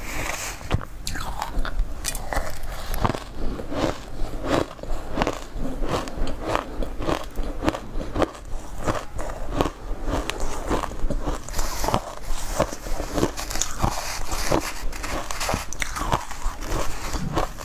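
Close-miked crunching and chewing of shaved ice in the mouth: a dense, irregular run of crisp crunches, several a second.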